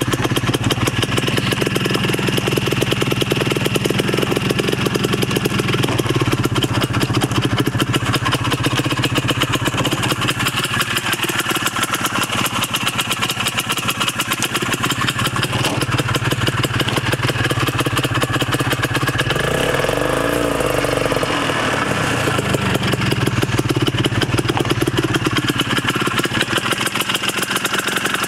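Snowmobile engine idling steadily, a rapid even firing over a constant low hum.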